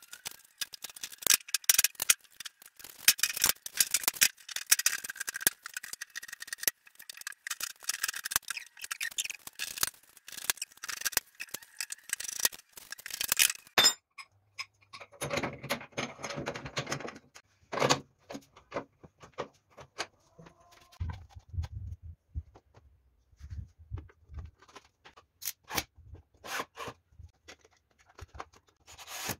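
Workshop handling sounds from hand tools and sheet-metal parts. First comes a long run of dense clicking and rattling, then, after an abrupt change about 14 seconds in, scattered taps, knocks and short scrapes.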